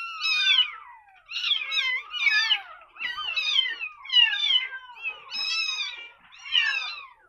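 A very young kitten, eyes not yet open, mewing over and over in high, thin cries, about eight of them, each falling in pitch. It is a hungry newborn crying while being bottle-fed milk.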